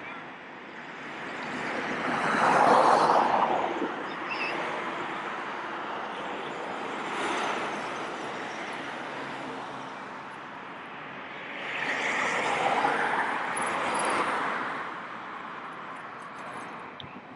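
City road traffic: a steady hiss of cars and tyres, swelling twice as vehicles pass close by, about three seconds in and again near the thirteenth second.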